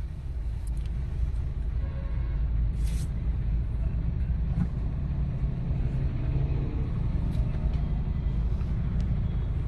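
Steady low rumble of a vehicle heard from inside the car's cabin, with a brief hiss about three seconds in.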